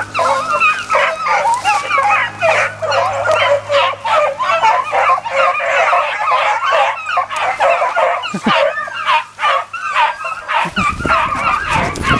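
A pack of beagles baying in full cry as they run a rabbit, many voices overlapping without a break. A low rumble on the microphone comes in near the end.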